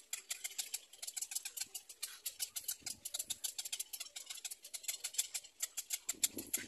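Black-crowned night heron chicks in the nest giving a rapid, high-pitched clicking chatter, several clicks a second, with no break. A lower-pitched sound joins just before the end.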